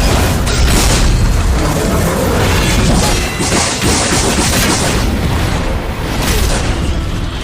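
Cinematic battle sound effects: deep booms and crashing impacts over a heavy rumble, with whooshing surges and music underneath.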